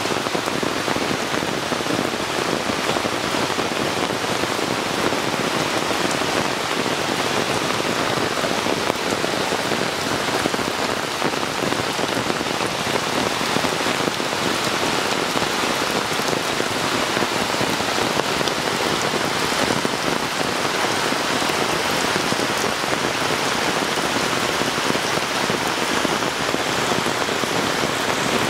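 Heavy rain falling steadily onto shallow floodwater, an even rush of drops striking the water's surface.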